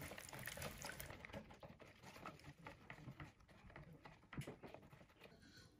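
Faint, quick patter of a silicone-coated wire whisk beating thick sour-cream-and-egg pancake batter in a bowl, whipping it until bubbles form; the strokes thin out near the end.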